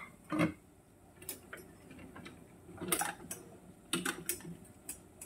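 Several light clicks and knocks at irregular intervals over a faint low background.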